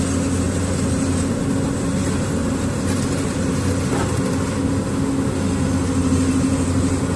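An engine running steadily at a constant speed, a continuous drone with no change in pitch.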